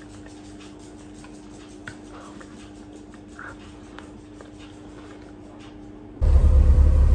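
Quiet kitchen room tone with a steady low hum and a few faint ticks. About six seconds in it cuts abruptly to the inside of a car's cabin, where a loud low rumble of the car's engine and road noise takes over.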